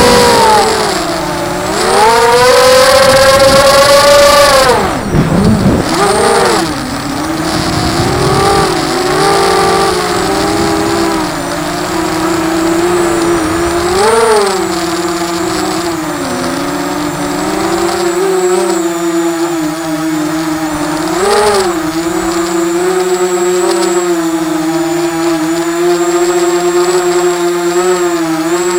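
ZMR 250 racing quadcopter's brushless motors and propellers whining, the pitch following the throttle: a loud climb about two seconds in, a sharp drop around five seconds, then a fairly steady pitch with brief throttle blips about fourteen and twenty-one seconds in.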